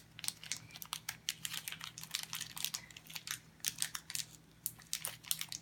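Crinkling of a small, partly torn toy package wrapper being handled and picked open by hand: an irregular run of quick crackles and clicks.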